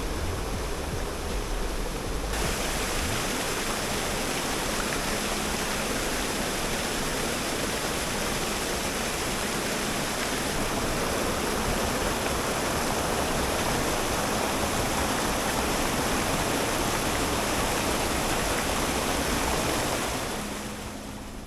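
Khlong Lan Waterfall, a 100 m waterfall: a steady, unbroken rush of falling water. The sound shifts about two seconds in, with less low rumble and more hiss, and fades out near the end.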